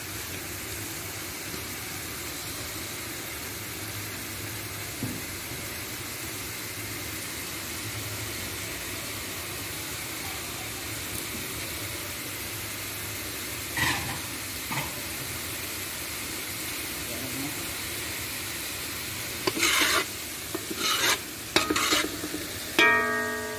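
Chopped onion, tomato, red pepper and garlic sizzling steadily in hot oil in a metal pan. A metal spatula knocks against the pan a couple of times about halfway through, then scrapes and knocks repeatedly near the end as the sofrito is stirred.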